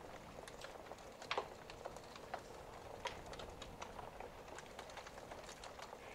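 Faint handling noise of a packet in someone's hands: soft crinkling and irregular light clicks, the sharpest a little over a second in.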